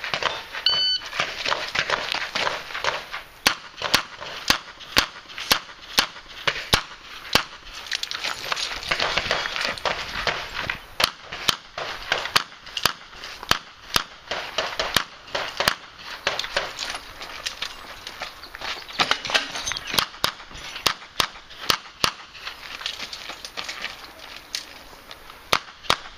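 A shot timer's short electronic beep about a second in gives the start signal. Then a pistol fires many shots, mostly in quick pairs and fast strings with short pauses between them, through the rest of the run.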